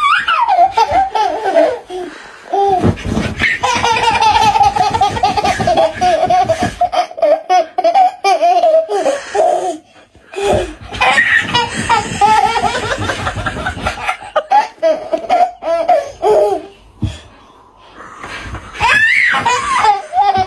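Toddler laughing hard in long, loud bouts of belly laughter, with short breaks about halfway through and again near the end.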